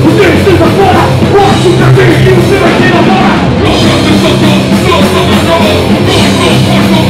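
Hardcore punk band playing live at full volume: electric guitar, bass guitar and drum kit, with a vocalist shouting into a handheld microphone.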